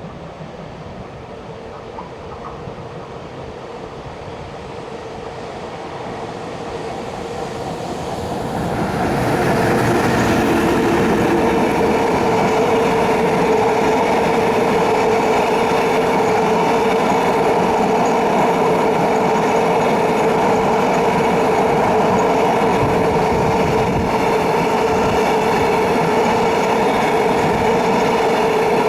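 Container freight train hauled by an EF210 electric locomotive passing through a station on a through track: it grows louder over the first nine seconds as it approaches, then the wagons' wheels run over the rails in a steady loud rolling noise with a steady tone in it.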